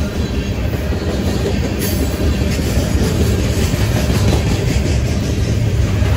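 Herzog ballast cars of a freight train rolling past: a steady heavy rumble of steel wheels on rail, with a few wheel clicks.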